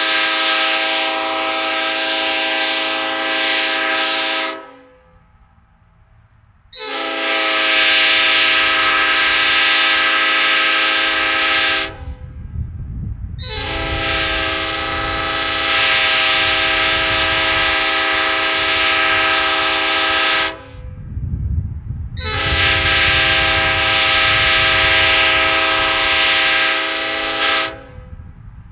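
Nathan Airchime new-cast P5 five-chime train air horn, sand-cast with bells 1 through 5, blowing four long blasts of a mellow chord, each about five to seven seconds with short breaks between.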